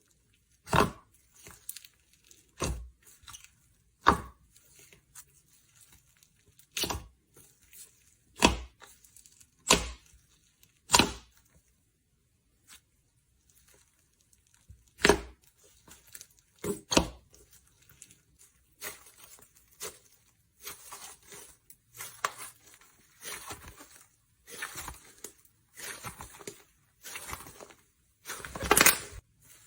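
Slime being squeezed, poked and pulled apart by hand, making sticky crackling pops and tearing sounds in separate bursts. In the second half the pops come more often and more softly, with a longer, loud squelch near the end.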